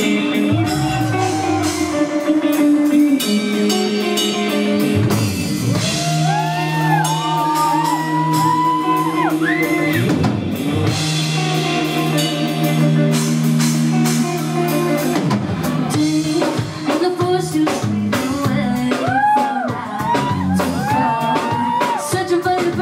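Live rock band playing: drum kit, electric guitars and bass guitar, with a woman singing lead over them.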